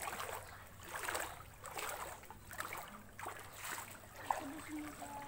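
Feet wading through shallow floodwater, a swish of water about once a second with each step.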